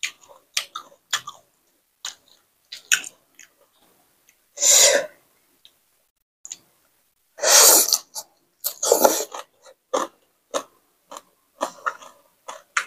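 A person eating raw salmon salad wrapped in fresh leafy greens: wet mouth clicks and chewing, with a few longer, louder bites near the middle.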